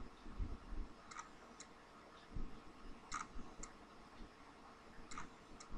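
Faint, irregularly spaced clicks of a stylus tapping on a tablet screen during handwriting.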